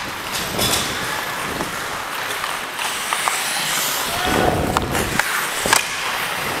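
Ice hockey skate blades scraping and carving on the rink ice, with several sharp clacks of sticks and puck. There is a longer, denser scrape a little past four seconds in.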